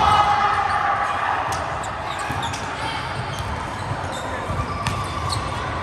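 Indoor volleyball play: scattered sharp hits and thuds of the ball and players' feet on a hard court.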